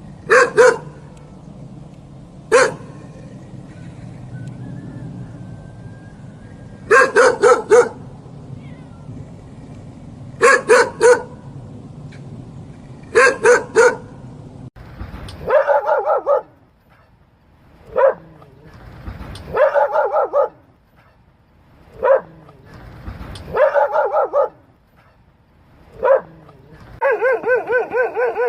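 A dog barking in short groups of two to four barks, with pauses between. About halfway through, a different recording with a quieter background takes over, with single barks and short runs, ending in rapid continuous barking.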